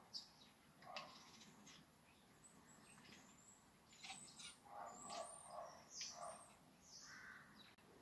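Long-haired black-and-white cat chattering at birds: faint, short chirping calls, a few near the start and a busier run of them through the middle.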